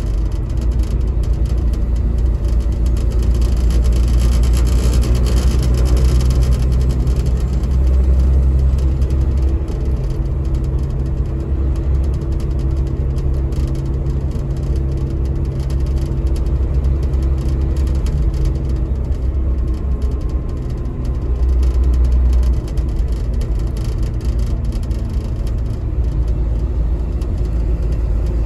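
Caterpillar diesel engine of a Denning Phoenix low-floor bus heard from inside the passenger cabin while the bus drives: a steady low engine drone over road noise, its pitch rising and falling a few times as the bus speeds up and slows.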